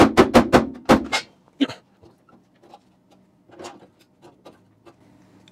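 A mallet striking a sheet-steel repair panel to bend it: about six quick, sharp blows in the first second or so, then a few lighter knocks and handling sounds of the metal.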